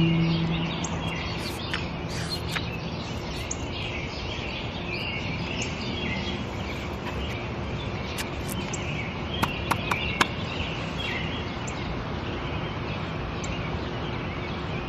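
Outdoor ambience of small birds chirping over a steady background hiss, with a low lingering tone fading out at the start and a few sharp clicks about two-thirds of the way through.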